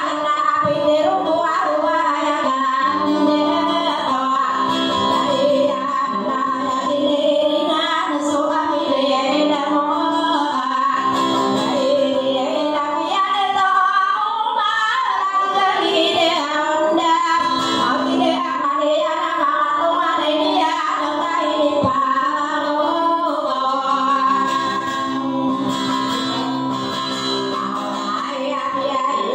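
A woman singing a song while strumming an acoustic guitar as her own accompaniment.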